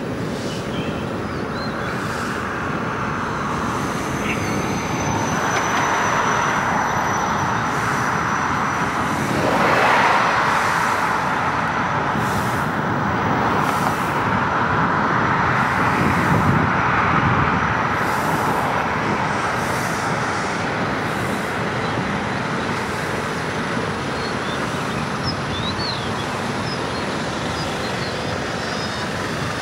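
Road traffic noise heard from a moving vehicle on a city road: steady tyre and road noise, swelling as vehicles pass, loudest about ten seconds in and again around sixteen to seventeen seconds.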